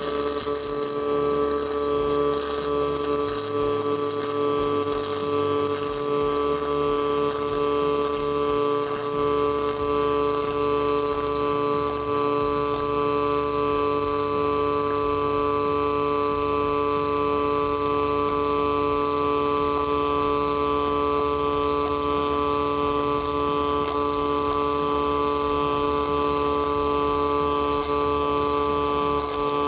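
MIG welding arc running continuously on steel plate through one long bead: a steady buzz with fine crackling spatter.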